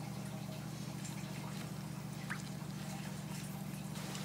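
Cooked bacon strips being worked through a sticky syrup glaze in a stainless steel bowl by hand, making faint wet, sticky sounds over a steady low hum.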